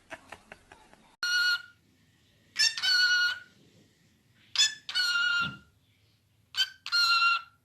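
Parrot imitating a rooster's crow, four short crowing calls a little over a second apart, each held steady, the later ones led by a brief pickup note. A few faint clicks come just before the first call.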